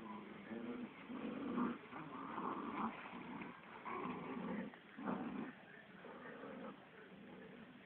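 A dog making low vocal sounds in several short bursts, the strongest about one and a half, two and a half, four and five seconds in, then quieter.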